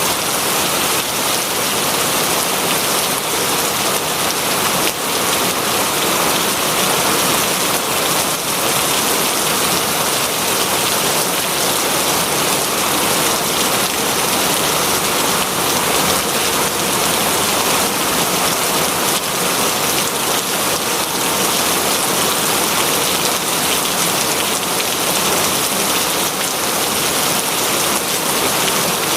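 Heavy rain falling steadily, a dense, even hiss of drops hitting a surface.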